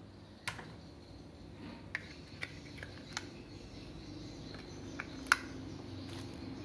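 AA batteries being handled and fitted into the battery compartment of a plastic wireless mouse: a few sharp clicks and taps, the loudest about five seconds in as the second battery goes into place.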